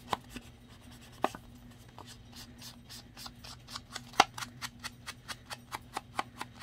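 Round foam ink blending tool dabbed against the edges of a paper tag, making short tapping pats: a few spaced taps at first, then a quick steady run of about five a second, with one sharper knock about four seconds in.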